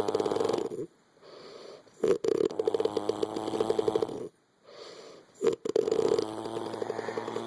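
Loud rattling snores, likened to a dirt bike: three long snores in a slow breathing rhythm, each a fast buzzing flutter with a steady droning tone under it, so two sounds come at once. Quieter breaths fall between the snores.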